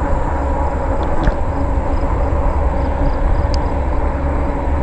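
Steady riding noise from a RadRover fat-tire e-bike on asphalt: wind rumbling on the action camera's microphone over the hum of the fat tires rolling, with a couple of faint clicks.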